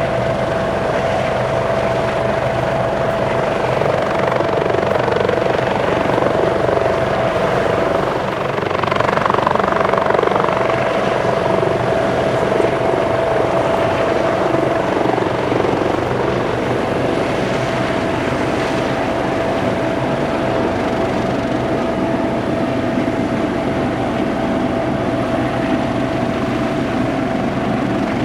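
Airbus (Eurocopter) AS365N3 Dauphin helicopter flying, a continuous rotor and turbine noise with a steady high whine over it, swelling slightly about a third of the way through.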